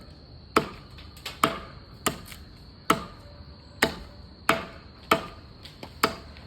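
Blade chopping into wood: about ten sharp, irregular blows, roughly one to two a second, each with a short ring.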